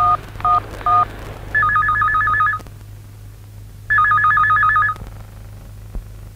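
Mobile phone keypad tones, three short two-note beeps about half a second apart, then an electronic desk telephone ringing in two warbling bursts about a second long.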